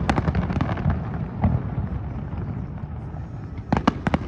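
Fireworks bursting: a sharp bang at the start, another about a second and a half in, and a quick cluster of three or four bangs near the end, over a continuous low rumble.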